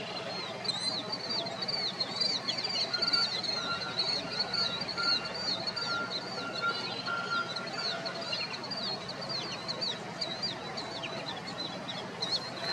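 Long-billed dowitchers calling while they feed: a quick, steady run of high, sharp chirping notes from several birds, thinning out near the end.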